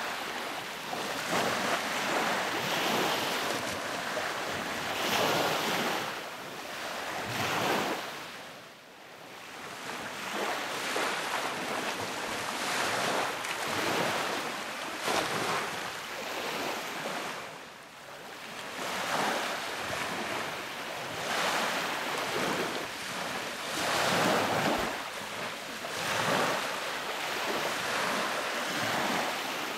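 Sea waves breaking and washing on the beach, the surf swelling and falling back every few seconds, with wind on the microphone.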